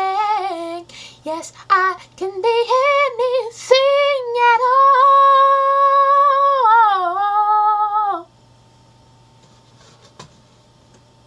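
A young woman's voice singing the song's closing ad-libs: quick ornamented runs that lead into one long held note, which dips at the end and stops about eight seconds in. After it there is only a low steady hum and a single click.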